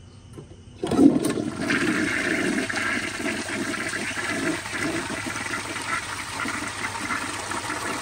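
1937 Standard Madbrook toilet flushing. It starts suddenly about a second in with a few clicks as the tank handle is worked, then a steady rush of water swirls down through the bowl.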